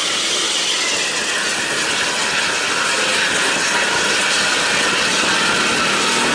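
Bus running at highway speed: a steady, loud rush of engine, exhaust and road noise with a faint high whine held throughout.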